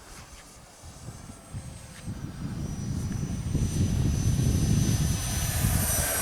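Electric ducted fan of a 6S Freewing Hawk T1 70mm EDF RC jet, a steady high whine over a rumble, growing much louder from about two seconds in and then holding loud.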